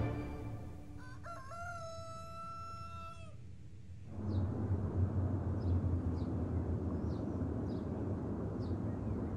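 Morning farmyard sounds: a rooster crows once, one long held call ending about three seconds in. About a second later a steady outdoor background begins, with a small bird giving short high chirps roughly once a second.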